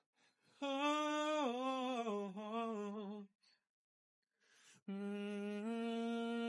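A single unaccompanied voice humming without words: a phrase that steps down in pitch for about three seconds, then after a short pause a long steady held note.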